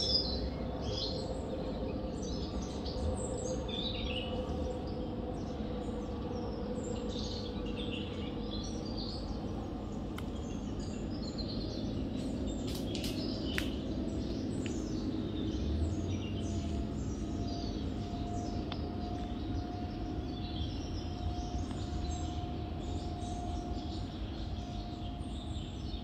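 Many small birds chirping and singing at once, short calls overlapping throughout, over a steady low background rumble. A faint steady hum joins in the second half.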